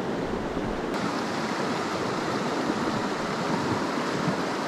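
Small mountain stream rushing steadily over rocks and riffles.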